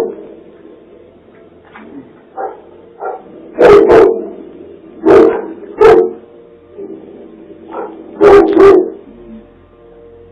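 A dog barking loudly in short, sharp barks, mostly in pairs, with a few quieter barks between them.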